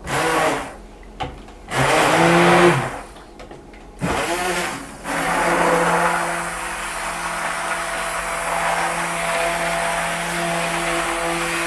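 Hand-held stick blender running in a tub of liquid ice-cream base, blending in bananas. It runs in a few short bursts during the first four seconds, then steadily from about five seconds in, with an even hum.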